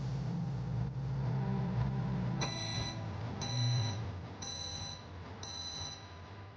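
Microwave oven beeping four times, about a second apart, over a low hum: its end-of-cycle signal.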